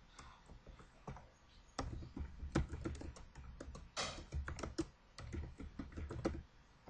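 Typing on a computer keyboard: irregular keystroke clicks, a few at first, then a quicker run from about two seconds in that stops shortly before the end.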